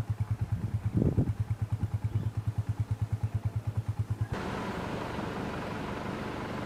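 An engine running with a low, rhythmic pulse of about eight beats a second. About four seconds in it cuts off and gives way to a steadier engine hum with more hiss.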